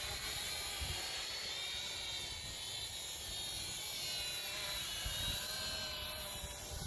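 Holy Stone HS120D quadcopter's propellers whining, several high tones drifting slowly up and down as the motors work against gusty wind, with wind rumbling on the microphone.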